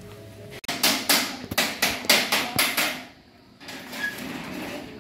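A hammer striking repeatedly on a hard surface: a quick run of blows about four a second for about two seconds, then it stops.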